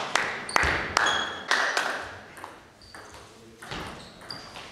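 Table tennis ball clicking sharply off bats and table: several quick hits at first, a quieter gap, then the strokes of a new rally near the end.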